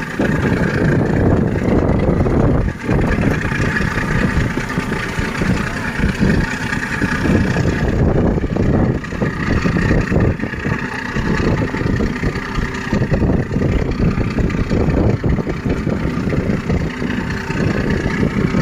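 A boat's engine running steadily, with wind buffeting the microphone in a low, fluttering rumble.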